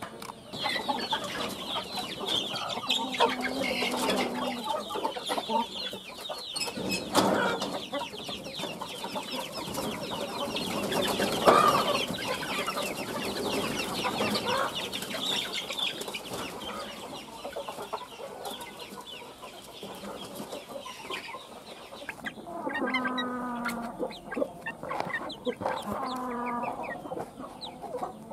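A flock of hens and young chickens calling together: a dense chorus of high peeping and clucking. Near the end come several longer, drawn-out calls about a second each, with a few knocks in between.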